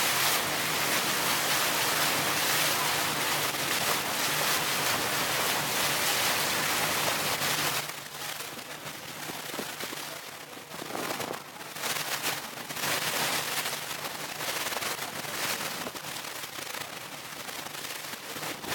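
Speedboat under way: wind noise on the microphone and rushing water over a low, steady engine hum. About eight seconds in, the sound drops in level and the hum fades, leaving uneven, gusty wind and water noise.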